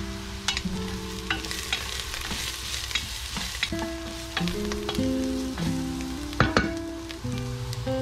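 Chopped onions and spices sizzling in a non-stick pan while a wooden spatula stirs and scrapes them, in a run of short scrapes and knocks; the sharpest comes about six and a half seconds in. Guitar music plays underneath.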